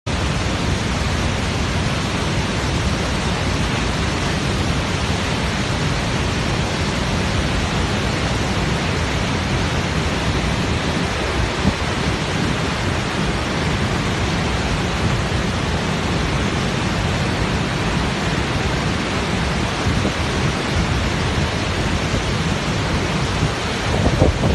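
Steady rushing water noise, loud and unchanging, with no distinct drops, splashes or rumbles.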